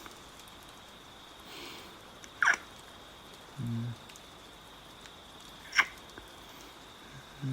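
A man's quiet mouth sounds: a soft breath, a sharp mouth smack about two and a half seconds in, a short hummed "mm", and another smack near six seconds.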